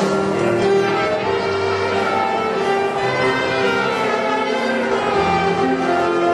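Old-time dance band music: a steady tune of long held notes over a bass line.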